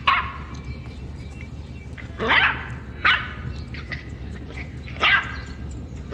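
A dog barking in short, high yips, four of them a second or two apart, some rising in pitch, over background music.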